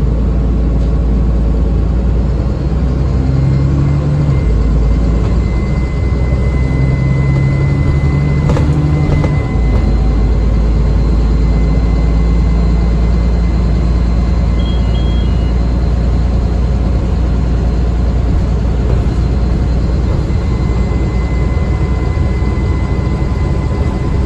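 ADL Enviro400 Trident double-decker bus heard from on board while under way: a steady diesel engine rumble with a thin high turbo whine over it. The low engine note shifts twice in the first ten seconds as the bus changes speed and gear.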